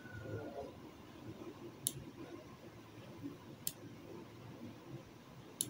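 Computer mouse clicking three times, about two seconds apart, over faint room noise.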